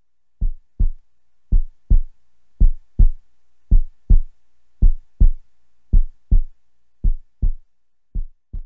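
Heartbeat sound effect: slow, deep lub-dub thumps in pairs, a little more than a second apart, with a faint low hum between them; the beats grow weaker near the end.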